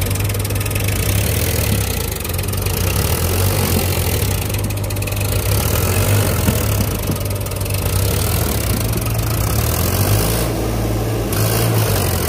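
Powertrac Euro tractor's diesel engine running steadily under load as it tows a second tractor stuck in deep mud.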